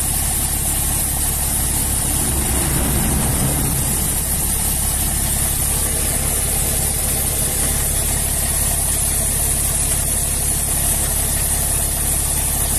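Heavy truck's diesel engine idling steadily, with a brief extra rumble about three seconds in.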